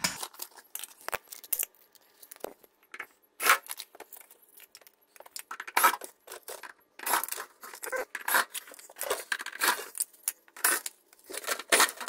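Irregular metallic clicks, clinks and rattles of Phillips screws being backed out of a refrigerator's rear panel and handled, with the sheet-metal panel rattling as it is loosened.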